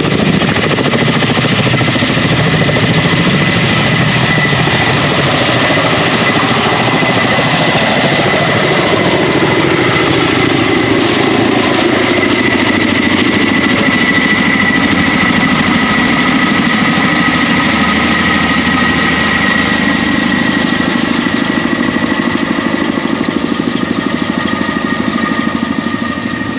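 Kamov Ka-32 helicopter's twin turboshaft engines and coaxial rotors running loud and steady, a high turbine whine over a fast rotor beat. A lower tone slides down in pitch about a third of the way through.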